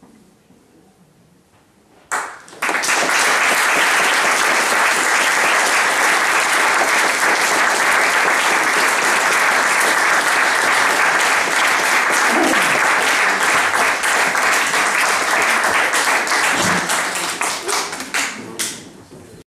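Audience applauding: it breaks out about two seconds in, holds steady and dense, then thins to a few last claps before stopping.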